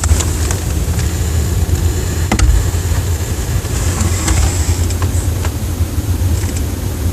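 Steady low, engine-like rumble with a constant high hiss and a few faint clicks.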